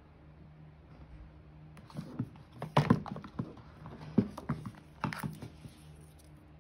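Handling noise from about two seconds in, lasting three and a half seconds: a run of knocks, taps and rustles as the phone is set down among the cardboard and paper packaging and the charging cable is taken from its box.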